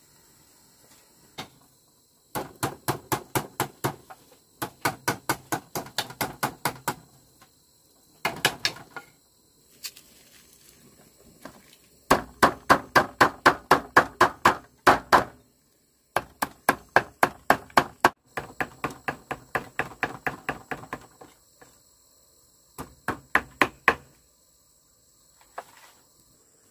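A kitchen knife chopping rapidly on a wooden chopping block, mincing garlic or shallots and herbs: quick, even strokes about five a second, in seven runs of one to three seconds with short pauses between.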